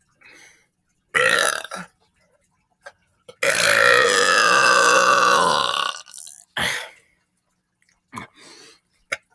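A person burping on purpose: a short burp about a second in, then one long, drawn-out belch of about two and a half seconds that falls slightly in pitch, followed by a short burp and a few small ones near the end.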